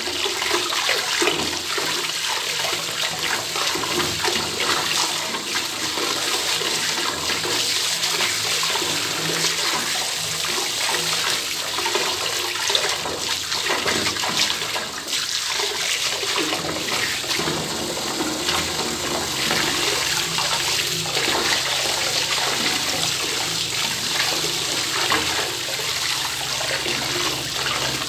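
Bath tap running open into a bathtub: a steady rush of falling, splashing water.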